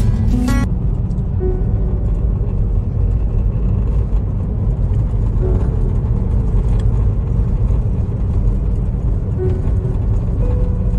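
Steady low rumble of a moving car heard from inside the cabin: engine and tyre noise on the road. Background music cuts off about half a second in.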